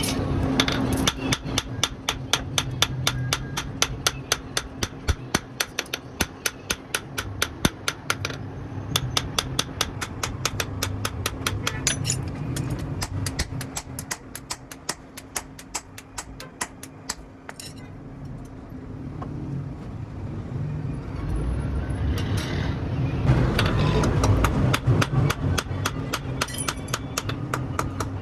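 Hammer striking hot steel on an anvil while forging a knife blade: a fast, even run of ringing blows, several a second. The blows thin out and go quieter in the middle, then pick up again. A steady low hum runs underneath.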